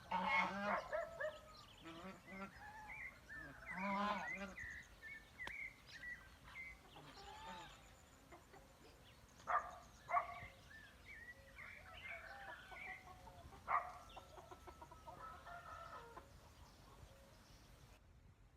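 Domestic fowl calling in a farmyard: many overlapping clucks and calls, loudest in the first second and around four seconds in, then scattered calls with a few sharp short ones. The sound cuts off shortly before the end.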